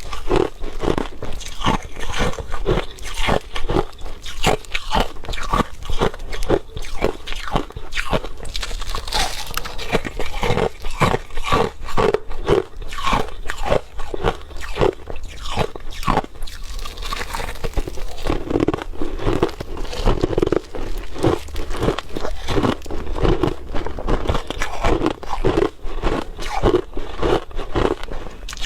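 Crushed ice being bitten and chewed close to the microphone: a continuous run of sharp, crisp crunches following one another rapidly.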